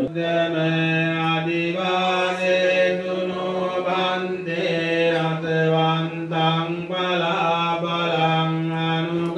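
Buddhist devotional chanting in Pali, sung in long drawn-out notes over a steady low drone.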